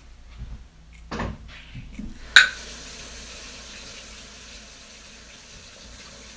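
Kitchen sounds: a few soft knocks, then a sharp clack about two seconds in, followed by a steady hiss of running water or frying.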